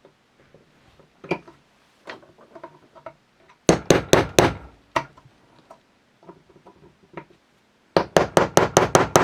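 A small brass punch being hammered to drive a very tight barrel band off a Mle.1892 Berthier. There are a few light taps, then a quick cluster of hard strikes about four seconds in, then a rapid run of about six strikes a second near the end.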